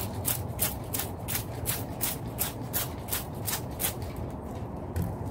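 Cloth wiping back and forth over a car's painted door panel, a swish with each stroke at about three strokes a second, stopping about four seconds in, over a steady low hum.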